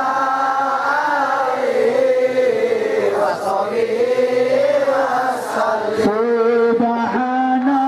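Slow melodic religious chanting with long held notes, the pitch rising and falling, with short breaks between phrases.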